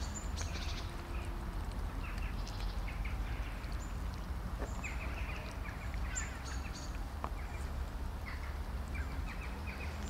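Cats eating dry kibble from plastic trays: irregular little clusters of crunching clicks, over a steady low rumble.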